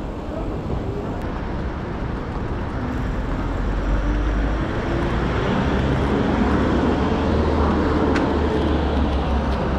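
Busy city street noise with traffic, and a vehicle's low engine rumble building up from about four seconds in. A single sharp tick near the end.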